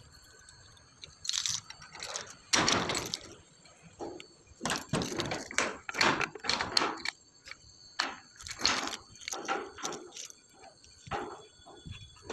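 A run of irregular clatters and knocks, starting about a second in and coming unevenly, several a second at times.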